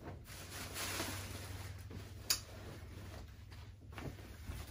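Faint rustle of shirts being handled and tossed onto a pile of clothing, with a single sharp click about two seconds in.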